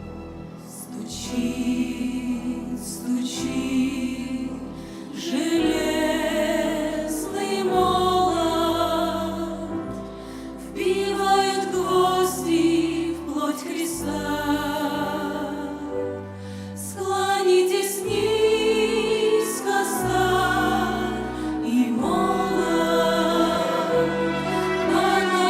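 Church vocal ensemble singing a hymn with instrumental accompaniment, over a bass line that moves in long held notes.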